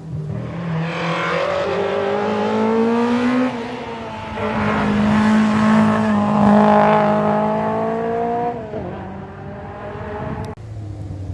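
Historic rally car's engine accelerating hard, its pitch climbing twice with a gear change about three and a half seconds in, then the revs falling away about eight and a half seconds in.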